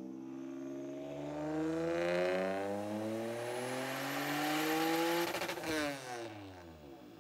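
Turbocharged Honda J35 V6 stroker engine pulling at full throttle on a chassis dyno: the revs climb steadily through a gear for about five seconds, with a high whine rising with them. Then the throttle closes with a short burst of noise and the revs fall away. This is the final dyno pull, which made 620 wheel horsepower at 15 pounds of boost.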